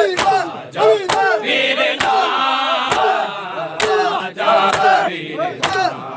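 Crowd of men shouting and chanting together, punctuated by sharp slaps of open hands striking bare chests in matam, landing at an uneven beat about once or twice a second.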